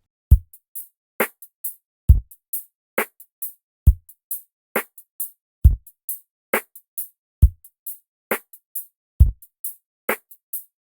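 A drum loop's kick, snare and hi-hat split into three noise-gated tracks and played back together: dry, separate hits with dead silence between them. A kick about every two seconds, a snare halfway between each pair, and hi-hat ticks in a sixteenth-note pattern in between.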